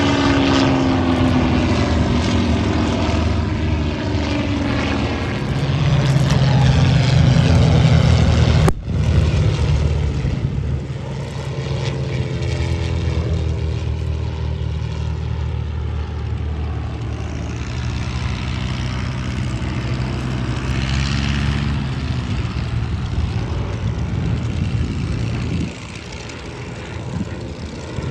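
Piston-engined aerobatic propeller planes flying a display overhead, the engine drone rising and falling in pitch as they pass and turn. It is loudest just before a sudden break about nine seconds in, then carries on steadily.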